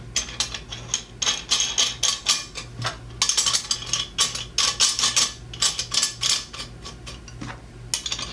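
Steel hex nuts being spun down by hand onto the threaded studs of a stainless steel pipe saddle clamp: a run of quick metallic clicks and clinks, busiest in the middle, over a steady low hum.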